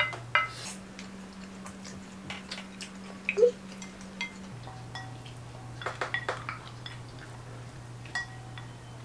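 Wooden forks and spoons tapping and scraping on ceramic plates, a scatter of light clinks, some of them ringing briefly.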